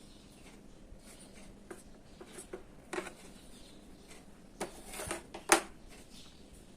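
Small clicks and taps of hands handling tubes of two-part epoxy adhesive while squeezing some out, a few scattered ticks with the sharpest about five and a half seconds in.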